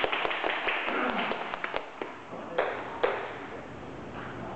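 Table tennis ball clicking against rackets and the table during a rally: a quick run of sharp taps through the first two seconds, then two louder knocks about halfway, after which it goes quieter.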